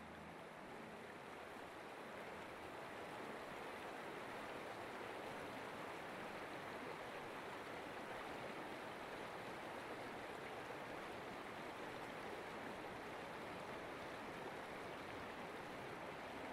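A faint, steady rushing noise with no tone or beat in it, swelling slightly over the first few seconds.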